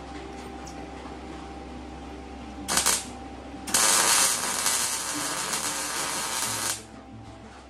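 Welding arc crackling on sheet steel: a short tack about three seconds in, then a steady bead of about three seconds. A low steady hum runs underneath.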